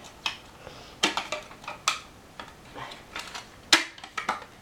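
Irregular sharp clicks and knocks of a computer case fan and its cable being handled and pushed into place inside a desktop case. The loudest click comes near the end.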